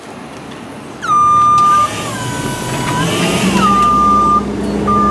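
Hyster forklift's warning beeper: a loud steady beep starting about a second in, sliding lower and back up, then beeping on and off about once a second near the end, over the low hum of the forklift's motor that comes in midway.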